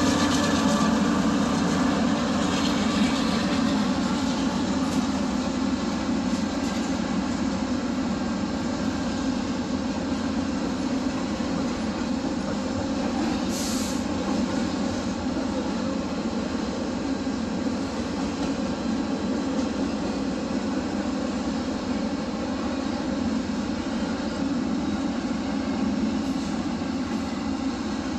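Cars of a CPKC freight train rolling past: a steady rumble of steel wheels on rail that eases a little in loudness over the first few seconds, then holds.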